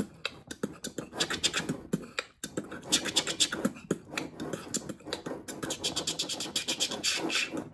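Rapid, irregular scratching and scraping of an arm and hand working inside a plastic fuel tank, shifting the fuel pickup hose around the tank floor. There is a brief pause about two and a half seconds in.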